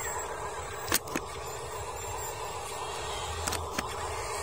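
Huina radio-controlled dump truck's small electric motor and gearbox running as it drives loaded over dirt, a steady whir, with two sharp clicks about a second in and two more about three and a half seconds in.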